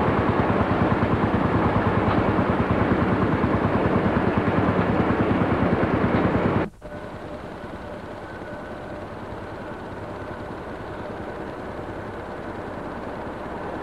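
A vehicle engine running loudly with a rapid, even pulse. About halfway through it cuts off abruptly, giving way to a much quieter steady hum with a faint high whine.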